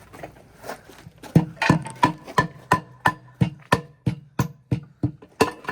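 A hammer beating on metal during a hand tire change, a dozen or so evenly paced ringing blows at about three a second, starting about a second in.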